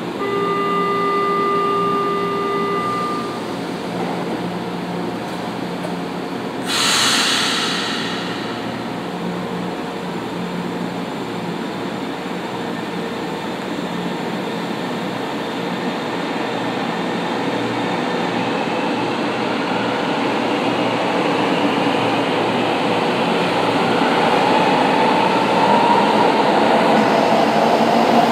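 São Paulo Metro Line 1 train at the platform: a steady door-closing warning tone for about three seconds, then a sharp hiss of air about seven seconds in. After that comes a low steady hum, and from the middle on a rising motor whine and growing rumble as the train pulls away.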